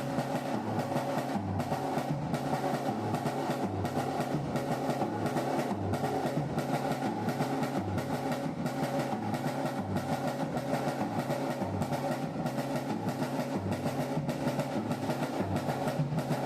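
Drum kit played in a steady groove: a regular bass-drum beat under a constant run of quick strokes on the other drums and cymbals.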